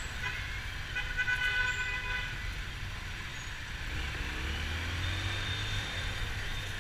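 Street traffic with engines running, and a vehicle horn sounding once about a second in for just over a second.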